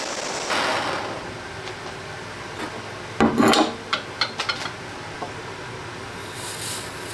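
Screwdriver parts being handled and fitted together on a workbench: a loud scraping knock a little past three seconds in, then a quick run of short knocks and clicks, over a steady hiss.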